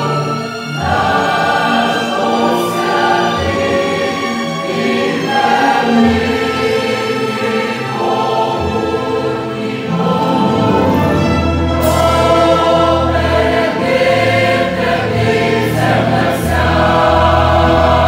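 A large mixed church choir singing a Ukrainian hymn of praise in full harmony. The sound fills out with deeper bass about halfway through.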